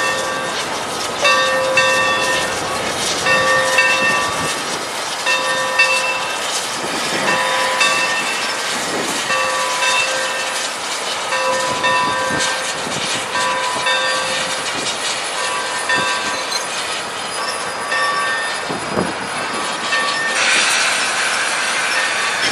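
Santa Fe 3751 steam locomotive rolling slowly past, its bell ringing in a steady rhythm about once a second over a hiss of steam and the click of wheels on the rail joints. The bell stops near the end as a louder hiss comes in.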